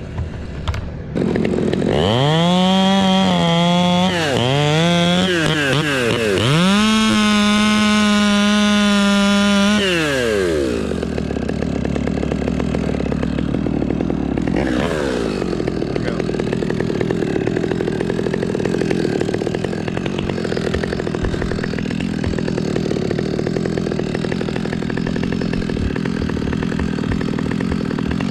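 Chainsaw engine revving: the throttle is blipped up and down twice, then held at high revs for a few seconds before dropping back about ten seconds in. A short falling rev follows, and a lower, steady engine run continues afterwards.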